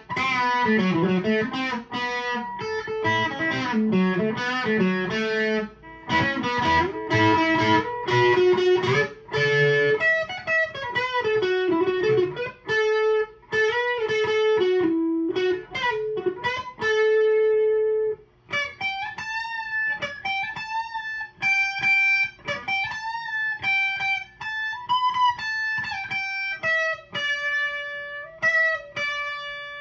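Electric guitar, a Fender Player Telecaster with Seymour Duncan pickups, played through an amp with the gain turned up: chords for about the first ten seconds, then single-note lead lines with held notes.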